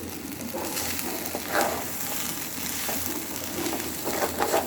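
Pulao rice sizzling as it fries in oil and ghee in a pot, with a few scraping stirs of a spoon along the bottom, about a second and a half in and again near the end. The rice has just begun to catch on the bottom of the pot, the stage before the water goes in.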